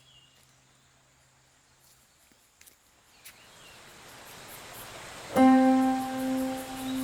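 Quiet outdoor ambience with a short high chirp and a few faint clicks, then a rising swell that opens into background music about five seconds in: a loud, sustained piano-like chord.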